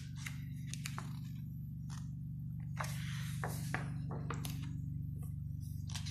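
Pages of a large hardcover photobook being handled and turned: light taps and clicks of fingers on the paper, and a page swishing over about three seconds in. A steady low hum sits underneath.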